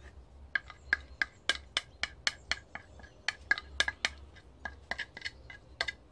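Metal spoon clinking and scraping inside a small glass jug, working out the sticky maple syrup left in it: an irregular run of sharp clinks, several a second.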